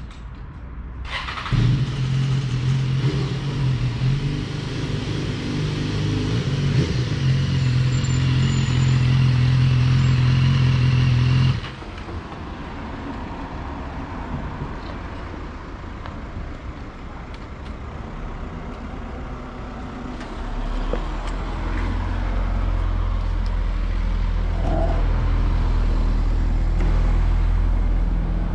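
BMW S1000RR's inline-four engine running as the motorcycle pulls up close and idles, then switched off abruptly about twelve seconds in. Afterwards the sound is quieter, and a low steady hum comes up in the last third.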